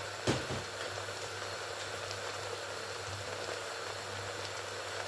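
Pot of coconut rice ingredients simmering on the stove with a steady hiss, and one light knock about a third of a second in.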